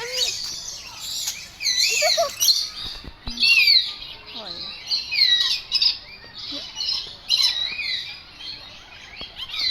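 Many birds calling at once, a dense chorus of overlapping chirps, whistles and squawks that keeps going without a break.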